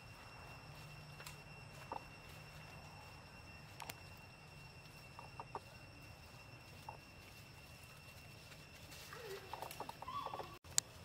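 Quiet outdoor ambience with a steady faint high whine and a few scattered soft clicks. Near the end comes a short run of animal calls: several quick notes and one that falls in pitch, followed by a single sharp click.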